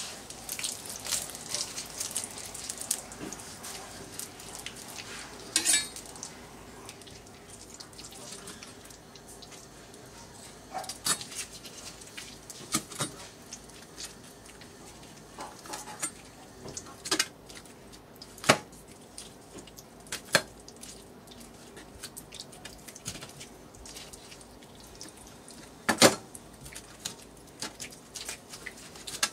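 Kitchen knife clicking and scraping against a plastic cutting board while a raw octopus is cut up by hand. Sharp clicks come at irregular intervals, the loudest near the end.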